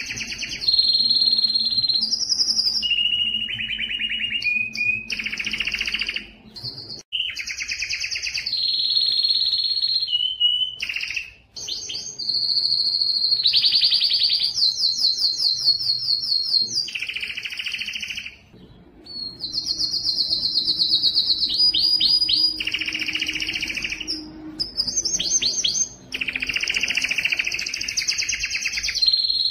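Domestic canary singing a long song made of rapid trills and rolls. It switches from one trill to the next at a different pitch every second or two, and breaks off briefly three times.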